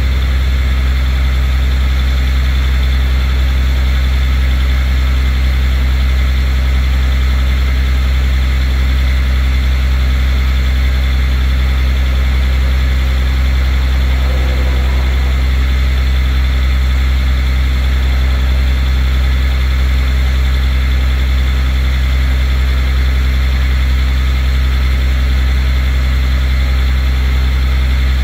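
Rollback tow truck's engine idling, a loud, steady low drone that does not change.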